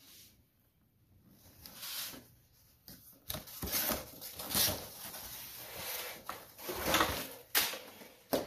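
Hands rummaging in a cardboard box and handling the metal and plastic ladder-leg parts inside it: a series of irregular rustles, scrapes and knocks.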